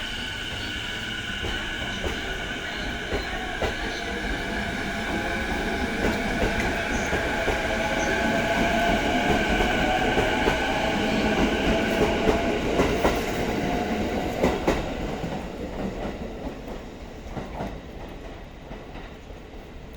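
E233-series electric train pulling away, its inverter and traction motors whining: steady high tones at first, then a lower tone rising in pitch as it gathers speed. Near the middle its wheels click over rail joints as the cars pass, and the sound then fades as it moves off.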